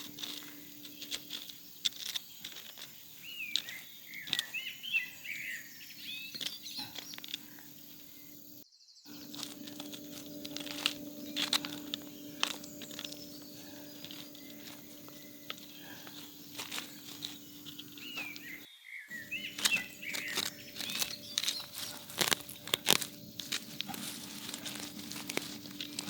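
Rustling, crackling handling noise with many sharp clicks, like something dry being crumpled or torn, over a steady low hum. A bird chirps in short twittering phrases twice, and the sound drops out for a moment twice.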